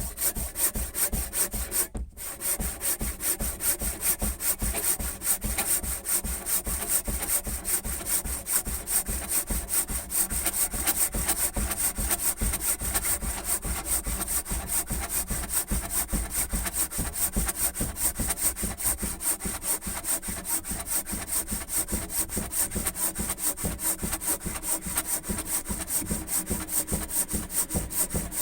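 Bahco Superior handsaw cutting through a piece of freshly cut wood: steady back-and-forth strokes at about three a second, with a brief pause about two seconds in.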